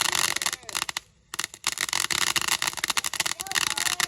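Fireworks crackling: a dense, rapid string of sharp pops that breaks off for a moment about a second in and then carries on.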